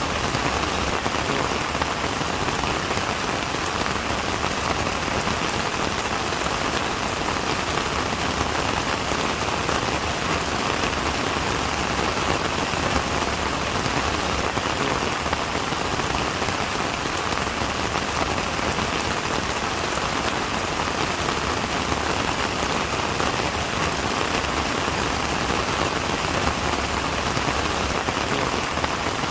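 Steady rain falling and pattering on surfaces, an even hiss of raindrops with no let-up.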